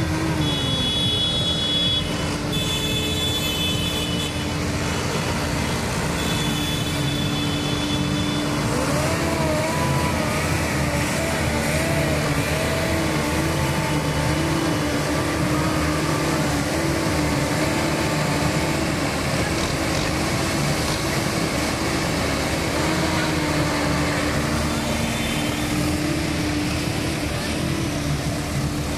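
Diesel engines of John Deere farm tractors running as they drive past at close range in a slow procession, with a steady tone that wavers up and down in pitch through the middle.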